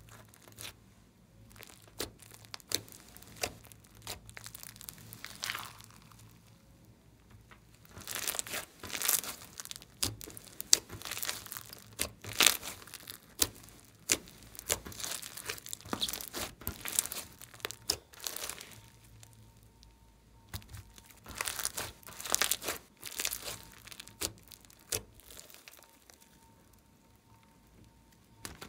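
Hands squishing, poking and stretching a thick, fluffy speckled slime, which gives off clusters of short crackles and small pops. The crackling comes in dense runs about a third of the way in and again near three quarters through, with quieter handling between.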